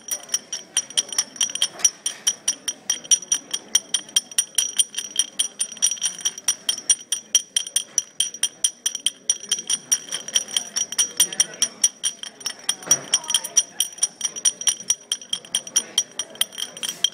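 Magnetic molecular-model parts clinking and rattling inside a stoppered glass Erlenmeyer flask shaken by hand, about four to five clinks a second, with the glass ringing. The shaking is what drives the parts to snap together and self-assemble into a molecular structure.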